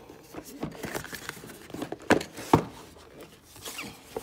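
Cardboard product boxes being handled on a tabletop: a run of light taps and scrapes, with two sharper knocks about two seconds in, half a second apart.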